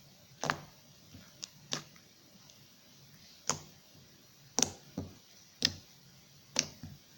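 Homemade slime being squeezed and worked by hand, giving short, sharp wet clicks and pops, about eight of them at irregular intervals.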